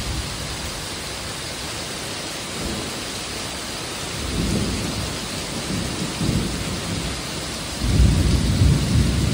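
Heavy rain pouring down steadily, with thunder rumbling low about halfway through and louder near the end.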